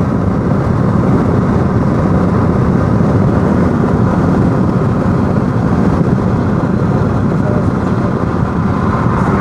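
Steady rumble of a car travelling at motorway speed, heard from inside the cabin: tyre and engine noise with no breaks.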